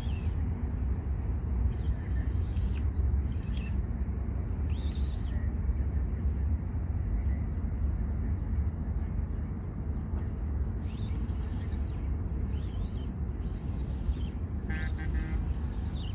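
Birds chirping and calling on and off over a steady low rumble, with a busier burst of calls near the end.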